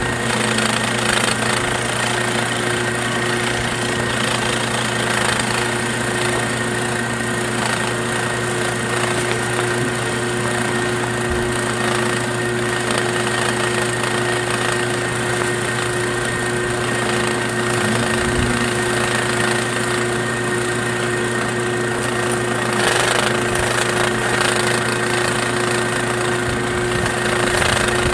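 Homemade K'nex chipper driven by an electric motor, running steadily with a constant hum while handfuls of snow are fed in and shredded.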